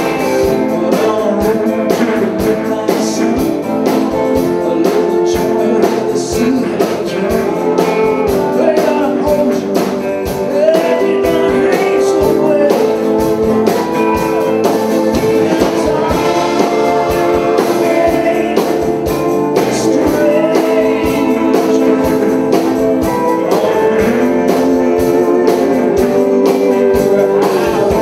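Live country-rock band playing an instrumental passage: electric guitar and pedal steel guitar over drums and bass, with notes that bend and slide.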